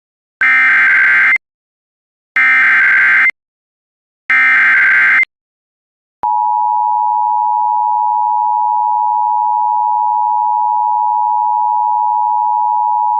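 Emergency Alert System SAME header: three one-second stretches of warbling data tones, a second apart, then about six seconds in the steady two-tone EAS attention signal begins and holds. It signals the start of an emergency alert, here a severe thunderstorm warning.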